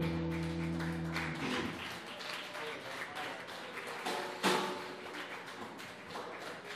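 A rock band's electric guitars and bass hold a final chord that rings and then cuts off about a second and a half in. Light, scattered applause and room noise follow, with a sharp knock about four and a half seconds in.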